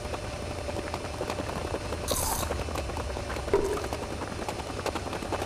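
Life Fitness motorized treadmill running with a steady low hum and a faint whine, with a man's running footfalls on the belt. A short hiss comes about two seconds in.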